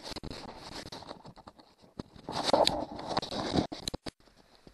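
Handling noise from gear being moved about in a kayak: rustling and scraping with scattered light knocks, louder for a second or two about two seconds in.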